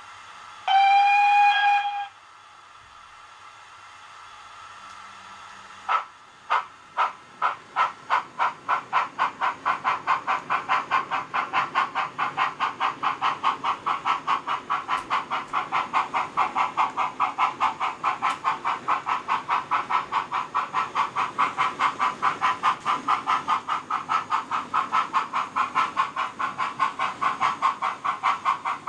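OO gauge model BR Standard Class 9F steam locomotive's sound decoder playing through its small on-board speaker as it starts a train: a loud whistle about a second in, a faint hiss of steam, then exhaust chuffs from about six seconds, slow at first and quickening to about three a second as it pulls away.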